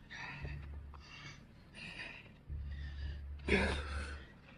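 Hard, gasping breaths from a man winded by a long set of burpees, about five breaths in a row, with the loudest exhale about three and a half seconds in.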